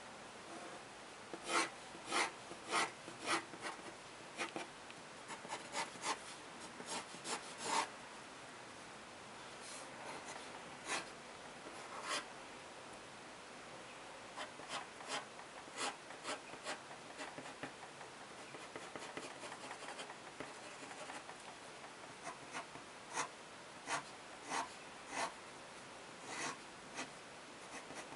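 Pen nib scratching across paper in quick, short strokes, the sound of hatching lines being inked, coming in runs with quieter pauses between.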